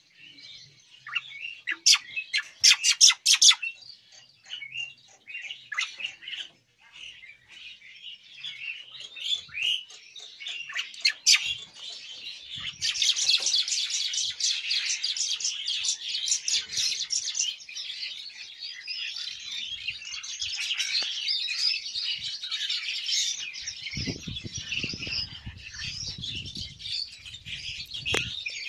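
Many caged starlings (Asian pied starlings and black-winged mynas) chirping and chattering: a few sharp, loud calls about two to three seconds in, then a dense, steady chatter of many birds from about twelve seconds in. A low rumble joins in near the end.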